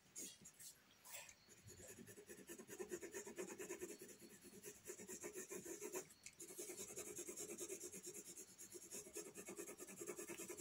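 A soft 6B graphite pencil scratching quickly back and forth on paper, about five faint strokes a second, as it shades in the dark side of a drawn ball. The strokes pause briefly about halfway through.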